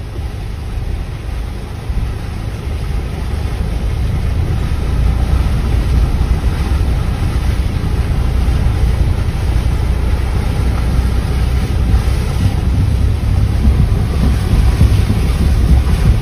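Muddy flash floodwater rushing across a road, a steady noisy rush with heavy wind rumble on the microphone, growing louder over the first few seconds.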